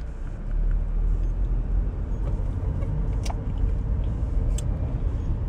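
Steady low rumble of a car's engine and road noise heard inside the cabin while driving, growing louder about half a second in, with two short clicks a little past the middle.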